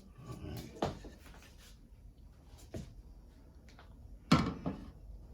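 Several knocks and bumps from handling things in a kitchen, with the loudest, a double knock, about four seconds in.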